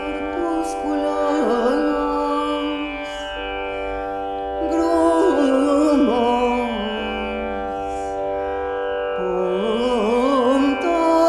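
Music: a steady drone of many held tones, with an ornamented, gliding vocal line sung over it in three phrases, the second the loudest.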